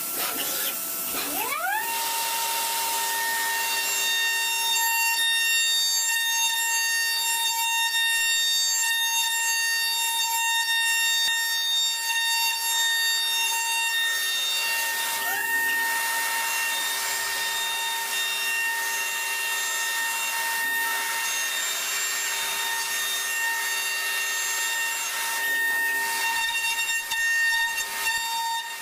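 CNC milling machine spindle spinning up with a rising whine about a second and a half in, then holding a steady high whine as the end mill cuts a metal block, over a hiss of cutting and coolant spray. A second brief rising sweep comes about halfway through.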